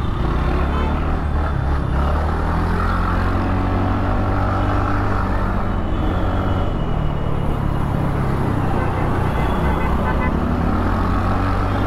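TVS Ntorq 125 scooter riding in city traffic: a steady rumble of engine, road and wind, with the engine note drifting up and down as the throttle changes.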